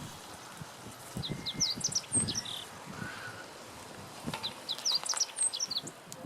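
Meadow bunting singing: two quick phrases of short, varied high notes, each about a second and a half long, the second beginning about four seconds in.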